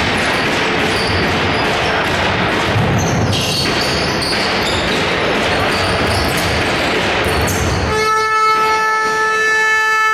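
Basketball game noise in a gym, with the ball bouncing. About eight seconds in, the arena's buzzer horn cuts in with a steady, loud tone that holds to the end.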